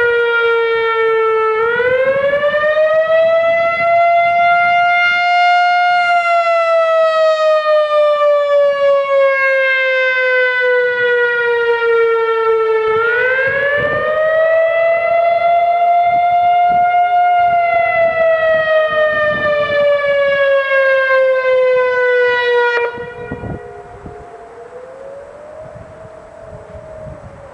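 Whelen 3016 electronic outdoor warning siren sounding its wail tone, with strong overtones: the pitch rises over about four seconds, then falls slowly, twice. About 23 seconds in it cuts off suddenly, and a much fainter wail goes on.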